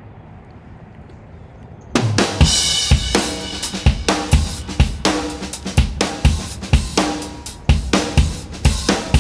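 Faint low background noise for about two seconds, then background music with a drum-kit beat starts suddenly.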